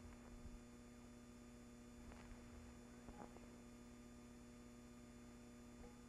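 Near silence: a faint steady electrical hum with a few soft clicks.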